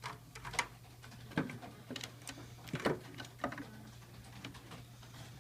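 Irregular clicks and light knocks of computer hardware being handled, as a hard drive is fitted into or taken out of a computer, over a steady low hum.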